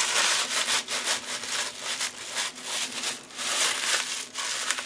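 Paper packing material rustling and crinkling in irregular strokes as hands rummage through a cardboard box.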